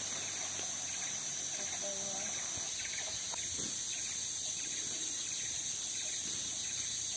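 Steady, high-pitched chorus of forest insects, even throughout, with a few faint short calls far beneath it.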